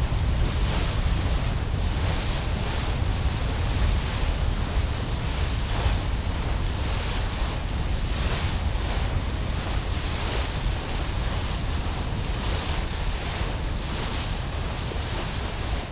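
Water rushing and splashing as a square-rigged sailing ship's bow cuts through waves, the hiss swelling every second or two, with wind buffeting the microphone as a steady low rumble.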